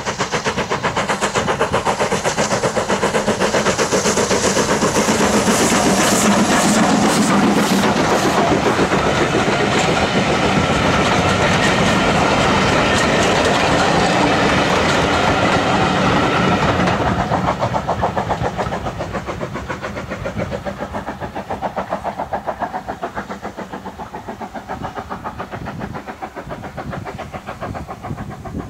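Steam locomotive and its passenger coaches passing close by, loud for the first two-thirds, then fading away as the train recedes.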